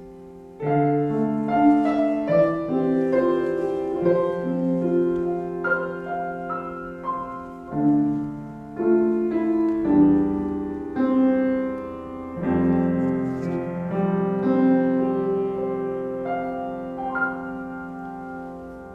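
Solo piano playing a slow, sustained instrumental passage, with chords changing every second or so, that fades away near the end.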